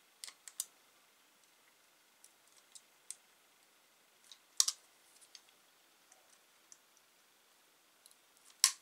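Steel pliers clicking and tapping on a thin wire as its short end is bent over. The clicks come irregularly, with the loudest about halfway through and near the end.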